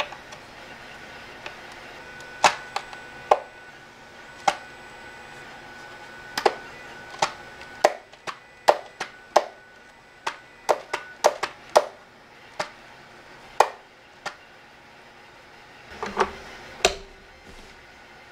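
Irregular sharp plastic clicks and taps from a Wyze Robot Vac's clear plastic dust bin being handled and its stiff lid worked open. Near the end come a couple of heavier knocks as the bin is seated into the vacuum.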